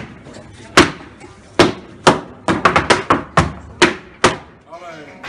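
Flamenco dancer's shoes stamping the floor in zapateado footwork: about a dozen sharp heel and sole strikes. They are spaced out at first, then come in a quick run in the middle.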